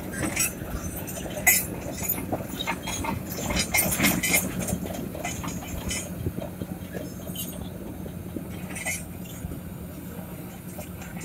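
A steady low engine hum, with scattered clicks and knocks over the first half.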